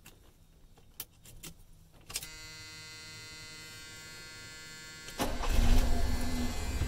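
Clicks of the key in the ignition of a 1976 Cadillac Sedan DeVille, then a steady dashboard warning buzzer for about three seconds. About five seconds in, the car's 500 cubic inch carbureted V8 starts and settles into running. It starts without the gas pedal being touched, the sign of a properly adjusted carburetor.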